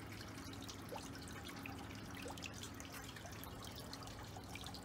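Faint water dripping and trickling in uneven small ticks, over a low steady hum.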